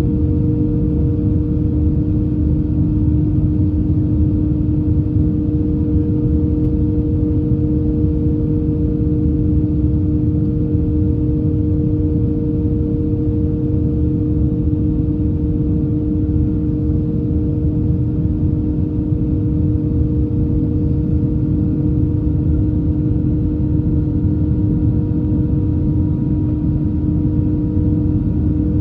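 Airbus A321 cabin noise in flight: a steady low rumble of engines and airflow with a constant hum, unchanging throughout.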